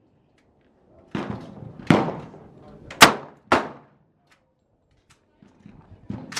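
Four gunshots within about two and a half seconds, each with a short echoing tail, the third by far the loudest.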